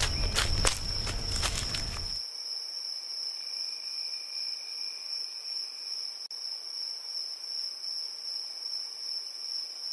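A steady, high-pitched insect chorus trills without a break. For about the first two seconds it is mixed with rustling and clicks, which cut off abruptly.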